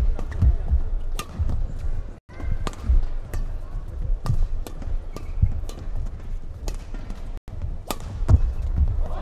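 Badminton rally: rackets striking the shuttlecock in sharp cracks about once a second, with players' feet thudding on the court between shots.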